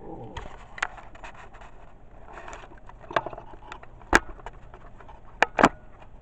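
Rustling of clothing and handling noise as a pet climbs up onto a person, with a few sharp bumps: the loudest about four seconds in and two close together near the end.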